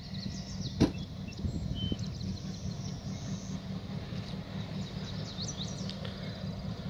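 Diesel cab-unit locomotives of a freight train running steadily as they approach, a low rumble, with birds chirping over it. A single sharp knock sounds about a second in.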